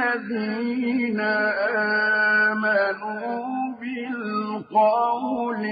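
A solo male voice reciting the Quran in melodic tajweed, drawing out long ornamented notes with short breaks between phrases.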